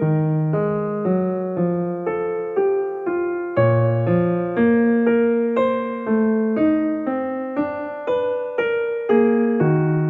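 Background music: a gentle electric-piano melody, about two notes a second, each note fading after it is struck.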